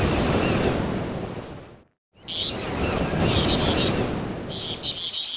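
Ocean surf washing in, swelling and easing, with small birds chirping in short bursts over it. The sound cuts out completely for a moment about two seconds in, then resumes.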